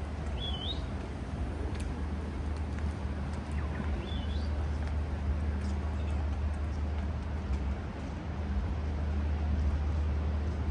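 A steady low hum under a general outdoor noise bed, with two short bird chirps, one about half a second in and one about four seconds in.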